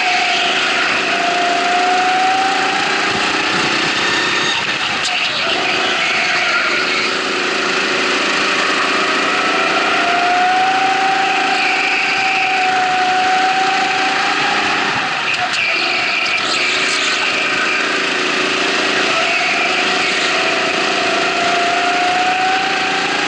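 Small engine of a Sodi rental go-kart, heard onboard, its pitch climbing as it accelerates and dropping back about three times as it slows for corners, with wind and tyre noise.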